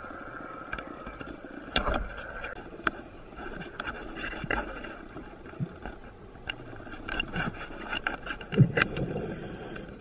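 Underwater sound of a scuba diver's breathing through a regulator: a steady whine with scattered clicks and knocks, and rushes of exhaled bubbles, the loudest near the end.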